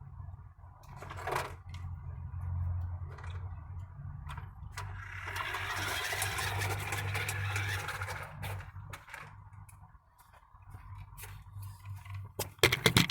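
Remote control car running: a small electric motor hums while the wheels scrape over the ground, with several loud knocks near the end.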